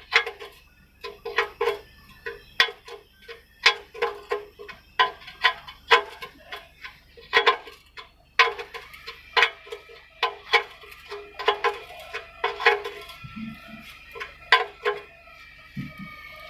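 Irregular metallic clinks and taps, about two or three a second. Each strike rings briefly at the same pitch, as when the same metal object is struck or set down again and again.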